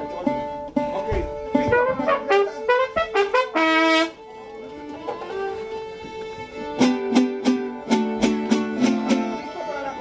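Mariachi band playing. Quick trumpet phrases end on a held note about four seconds in. After a quieter moment, rhythmic strummed chords with low bass notes come in near the end.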